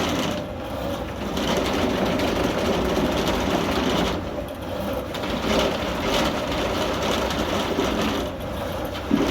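Rothenberger R-650 drain cleaning machine running, its motor spinning a cable with a chain head in a sewer pipe to break up grease, with a dense clattering noise. The noise dips briefly three times, about every four seconds.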